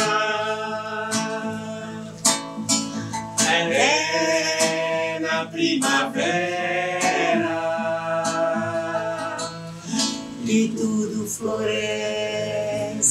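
A man and a woman singing a cheerful song in Portuguese about spring and love, with musical accompaniment.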